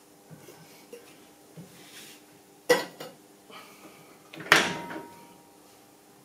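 Metal tools being handled on a milling machine's steel table: two sharp metallic clunks with a short ring, a little under two seconds apart, and a few light knocks, over a faint steady hum.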